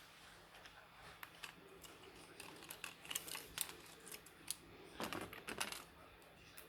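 Faint, irregular clicks and taps of small tools and tablet parts being handled during a motherboard swap, busiest in the middle, with a short cluster of clicks and rustling about five seconds in.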